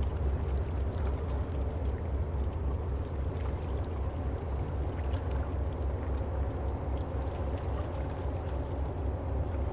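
Container ship's diesel engine giving a steady low drone as the ship passes.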